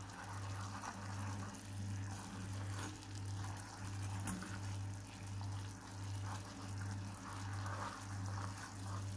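Sugar syrup boiling hard in a heavy aluminium saucepan for caramel, bubbling steadily as a wooden spoon stirs it; most of the water has cooked off and the sugar is starting to colour. A low hum swells and fades evenly underneath, about every two-thirds of a second.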